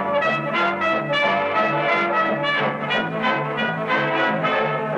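Orchestral film-score music led by brass, with trumpets and trombones playing a quick run of short notes.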